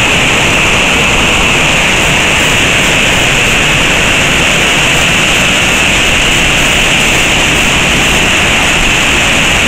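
Crnodolski waterfall plunging down a rock face, with its white water rushing over boulders below: a loud, steady rush of falling water.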